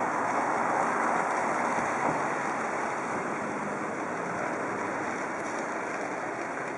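Street traffic noise: a steady hiss with no clear engine note, loudest in the first couple of seconds and slowly easing off.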